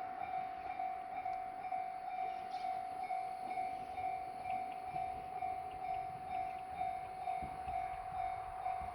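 Electronic level-crossing warning sounder of a simple crossing alarm, sounding its Tōhoku-type tone: one pitched electronic tone pulsing evenly and rapidly, about two to three beats a second, signalling an approaching train.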